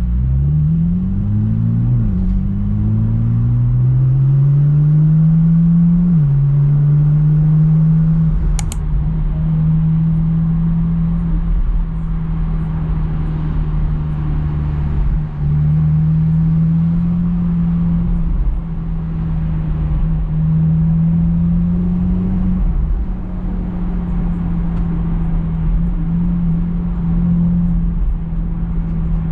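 Porsche 718 Boxster GTS 4.0's naturally aspirated flat-six accelerating through two quick upshifts, then holding a steady engine note that rises gently and drops back at later gear changes. One brief sharp click about nine seconds in.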